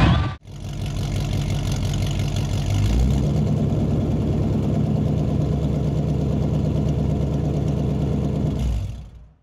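An engine idling steadily, stepping up slightly about three seconds in and fading out near the end.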